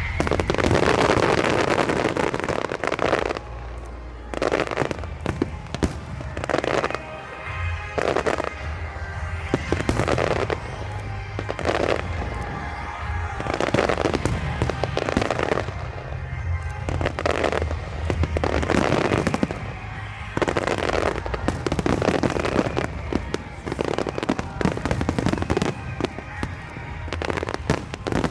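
Aerial fireworks going off in quick succession, a burst every second or two, each followed by a crackling trail.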